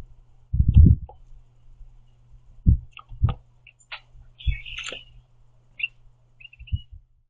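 Carolina wren on a platform feeder close to the microphone: about five dull knocks and taps as it hops and pecks at the seed, with a few short high chirps in the middle and latter part.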